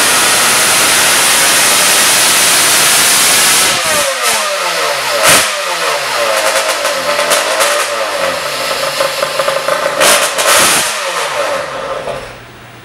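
Home-built 487cc two-stroke engine on a Yamaha RZ350 case running flat out on a flywheel dyno. About four seconds in the throttle closes and the revs fall away, with a couple of brief blips of the throttle. Near the end the engine cuts off, leaving a steady low hum.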